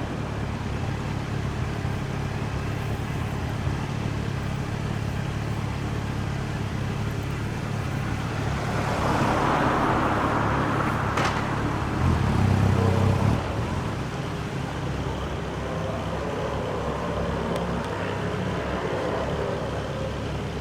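Street traffic at an intersection: engines running steadily, with a vehicle passing about nine to eleven seconds in and a louder low engine burst about twelve seconds in.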